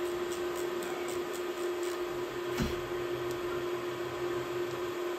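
Steady hum and hiss, with one constant mid-pitched tone under a noise, a few faint clicks and a light knock about halfway through.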